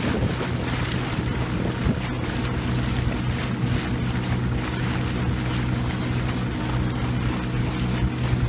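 A boat's motor running steadily at cruising speed, a constant low hum, with wind buffeting the microphone and water rushing past the hull.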